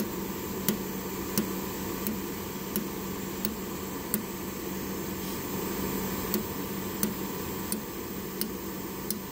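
DADO dental laser welder firing pulse after pulse as it welds a fine wire onto a metal orthodontic molar band: a sharp click about every 0.7 seconds, over a steady background hum.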